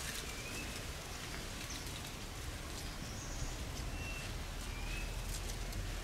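Outdoor ambience: a steady hiss with a low rumble like wind on the microphone, scattered faint ticks, and a few short, thin bird chirps.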